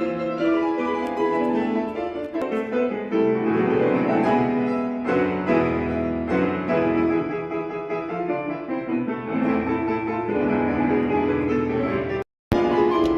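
Background music: piano with bowed strings, in a gentle classical style, broken by a sudden cut to silence for a moment near the end.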